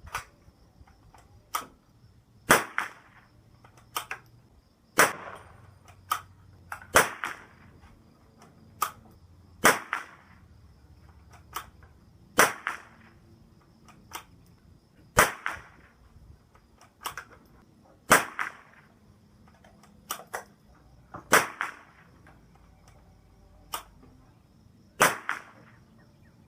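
CZ455 bolt-action rifle firing .22 LR Norma TAC22 rounds, about nine sharp shots two to three seconds apart, each with a short ringing tail, and quieter clicks between the shots.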